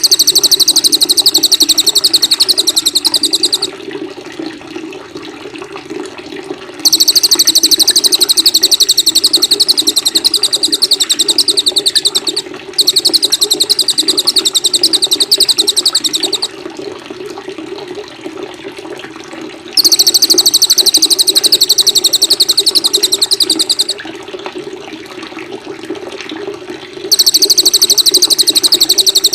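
Small songbird giving very fast, high-pitched trilling bursts of about three to five seconds each, five in all with short pauses between. This is rapid-fire 'tembakan' song used as filler-song training for white-rumped shamas. Steady running water sounds underneath.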